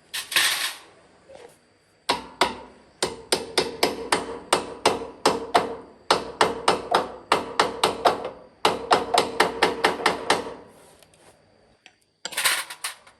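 Hammer striking a metal part of a mini milling machine being restored, a run of steady, ringing blows about three to four a second. A short hiss comes before the blows and another near the end.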